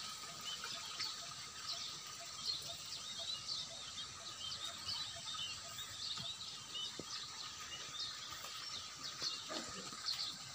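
Outdoor ambience of many small birds chirping, a dense scatter of short high chirps several times a second over a steady faint hiss.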